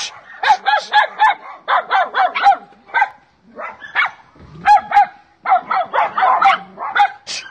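Dog barking over and over in quick runs of short barks, several a second, with a couple of brief pauses midway.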